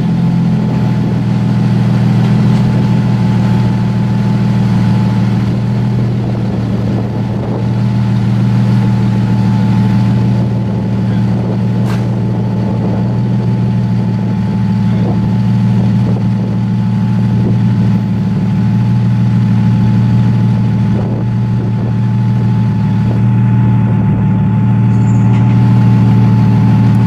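Infiniti G35's VQ35DE V6 running at a steady speed through a custom single-exit exhaust, a deep, even drone.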